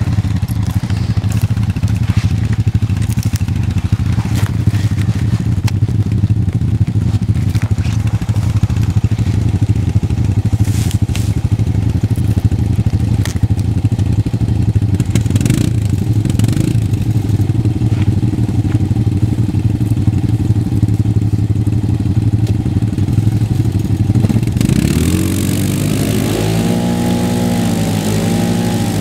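ATV engines running steadily while a quad stuck in mud is towed out by a second ATV. From about three-quarters of the way in, an engine revs up and down under load, with the odd clatter along the way.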